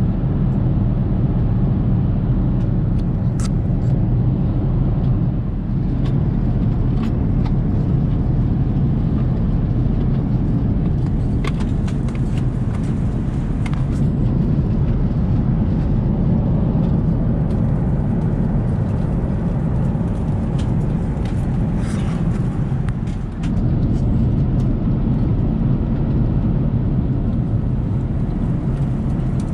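Steady low rumble of an Airbus A380's cabin noise in cruise flight, the airflow and engines heard from inside the cabin, with a few light clicks scattered through it.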